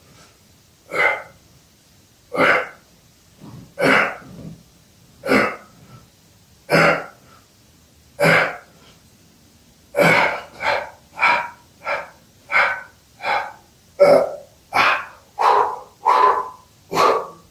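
A man's forceful exhalations and grunts, one with each ball crunch. They come about every second and a half for the first eight seconds, then quicken to about two a second from about ten seconds in, as the set turns to short, fast burn reps.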